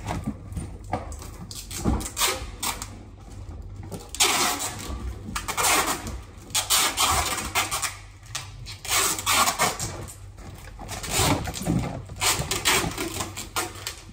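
Irregular bursts of rustling and scraping as goods and packaging are handled, over a low steady hum.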